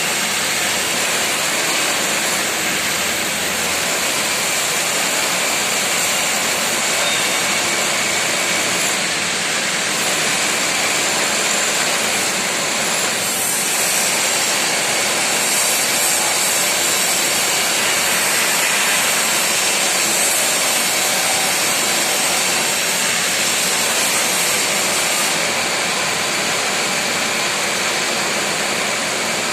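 Steady, loud hissing of a CNC plasma torch cutting a steel H beam, running without a break.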